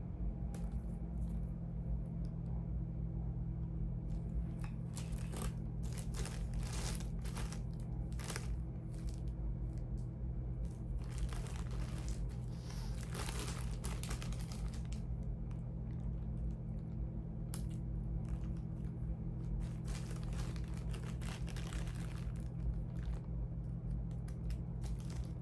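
Rustling and crinkling of charging cords being handled and sorted, in several bursts, over a steady low hum.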